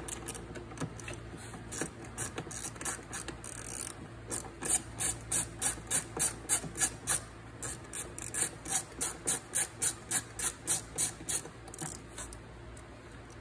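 Quarter-inch drive ratchet with a deep 10 mm socket clicking as it backs off a wiper motor mounting nut. A few light clicks come first, then from about four seconds in a steady run of about three or four clicks a second that stops shortly before the end.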